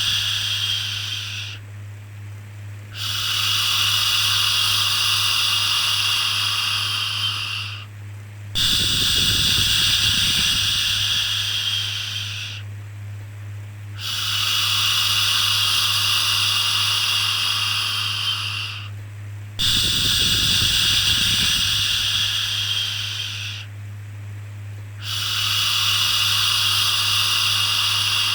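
Baby-soothing "shhh" shushing, repeated in long hisses of about four seconds each with a pause of about a second between, six in all, over a steady low hum.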